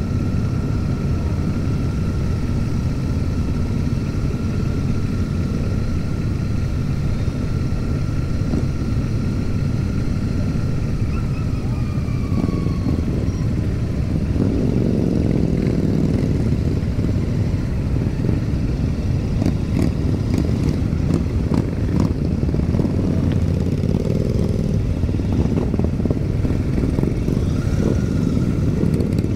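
Royal Enfield Super Meteor 650's parallel-twin engine running at low road speed amid a dense pack of other motorcycles, their engines mixing into a steady rumble. Near the end the pack slows and closes up.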